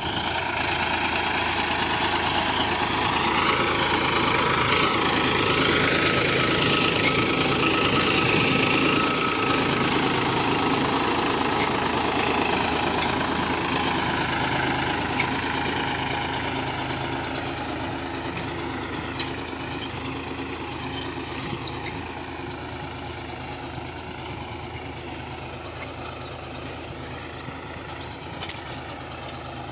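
Farmtrac Champion 41 tractor's diesel engine running under load while pulling a heavy-duty cultivator, its pitch wavering. It is loudest in the first ten seconds and then fades steadily as the tractor moves away, with a few short clicks along the way.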